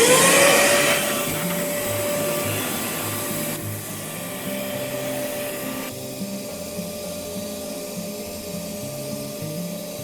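Bee vacuum switching on: its motor spins up with a quickly rising whine, then settles into a steady whine with rushing air, gradually getting quieter over the following seconds.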